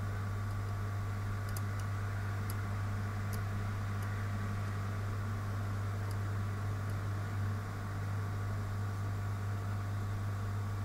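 Steady low electrical hum over a faint hiss, with a few soft ticks in the first few seconds.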